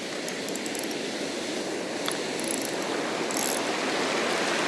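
Steady wash of breaking surf, with faint light clicking from a Trabuco Xenial 3500SW spinning reel as line is cranked in under a fish's pull.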